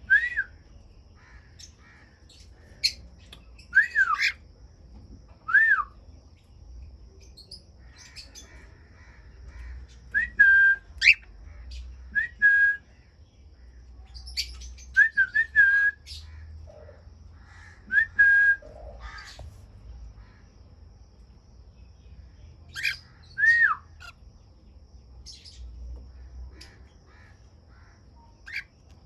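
Cockatiels calling: short whistled calls that rise and fall, coming in scattered groups every couple of seconds, mixed with brief sharp squawks and faint chirps of other aviary birds.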